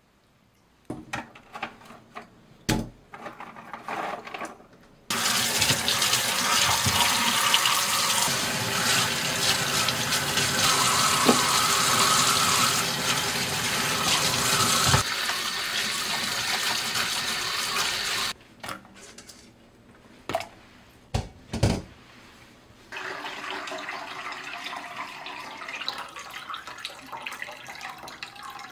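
Tap water running steadily into a stainless steel pot of dried medicinal roots in a kitchen sink, starting abruptly about five seconds in and cutting off about thirteen seconds later. Before it come soft wet clicks from handling peeled cherry tomatoes, and after it a few knocks, then a quieter stream of herbal broth being poured through a mesh strainer into a glass bowl.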